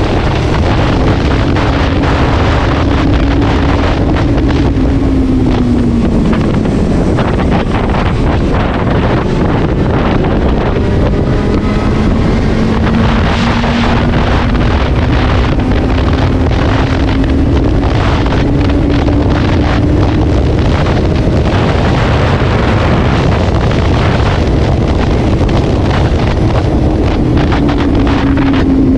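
Benelli TNT 600i inline-four engine running under heavy wind noise on the microphone. The engine note drops about six seconds in, then climbs slowly for several seconds and eases off again near the end.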